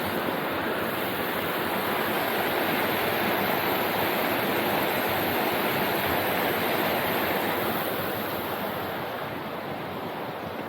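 Steady rush of a fast-flowing mountain stream, easing slightly near the end.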